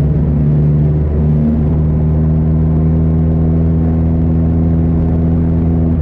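An engine running steadily at one constant speed, a deep even hum with no revving.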